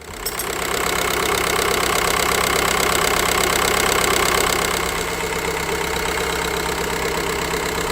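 Skoda Fabia 1.9 TDI diesel engine idling steadily.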